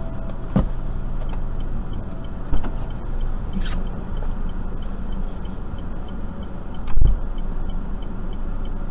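Inside a stationary car: a steady hum of the idling engine and cabin fan, with the turn-signal relay ticking evenly about two times a second. A few thuds, the heaviest about seven seconds in.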